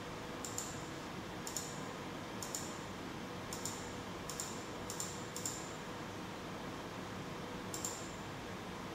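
Computer mouse button clicked about eight times at uneven intervals, mostly in the first six seconds, over a steady hiss and a faint hum.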